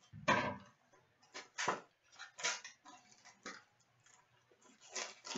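A sealed trading card box being unwrapped and opened by hand: its plastic wrapper and cardboard crinkling and rustling in short, irregular crackles.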